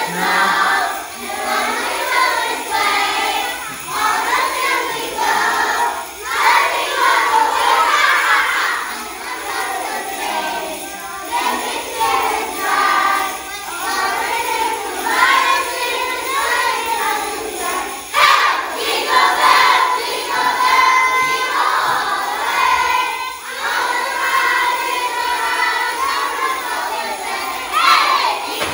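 A group of young children singing a holiday song together.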